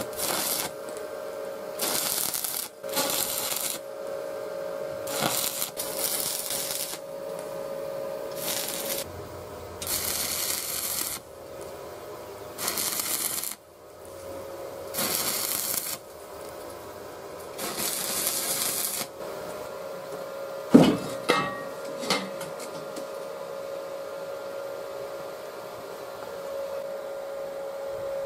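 Stick (arc) welding: the electrode's arc crackling and sizzling in short bursts, about ten tack welds on a steel square-tube frame, over a steady hum. A few sharp knocks follow a little after the last burst.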